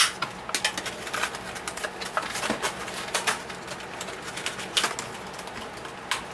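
Plastic blister packaging being handled, with irregular crinkles and sharp clicks and crackles.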